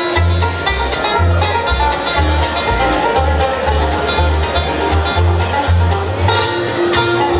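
Bluegrass band playing: banjo rolls and guitar picking over a steady pulse of low bass notes, with fiddle in the mix.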